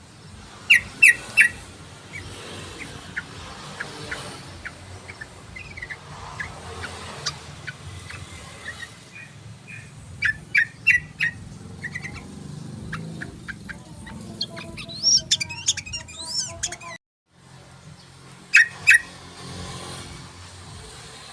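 Yellow-vented bulbul calling: loud clusters of short, sharp chirps in quick succession, with softer chattering notes between them. The sound drops out briefly about two-thirds of the way through.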